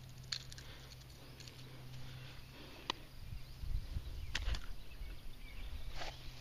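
Sparse light clicks and rustles from hands working steel forceps to unhook a fish. A low handling rumble on the microphone grows louder about three seconds in.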